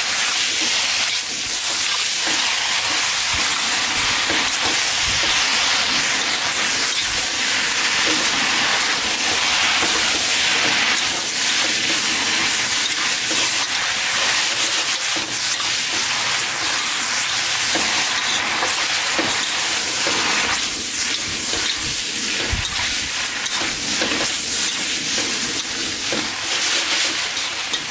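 Chow mein noodles and vegetables sizzling in a hot wok with a steady hiss as they are stir-fried, stirred and tossed with a metal wok spatula.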